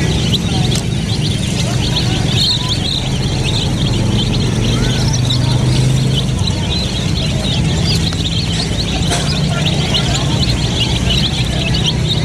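A flock of young chicks peeping without pause, many high cheeps overlapping, over a low steady hum.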